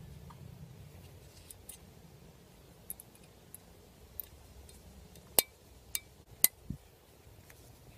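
Small metallic clicks and clinks of brake pad shims being pushed into a disc brake caliper bracket by hand, with three sharper clicks in the second half.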